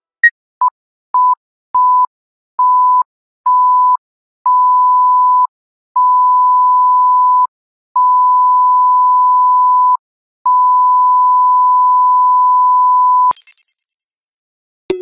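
Electronic beep sound effect: a steady pure tone of the kind used to bleep out swearing, sounded nine times in a row with each beep longer than the last, from a quick blip to nearly three seconds. A short higher blip comes just before the first beep, and a brief crackle follows the last.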